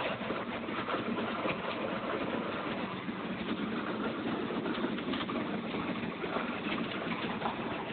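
Cessna Skylane's single piston engine and propeller running steadily at low power, heard from inside the cabin.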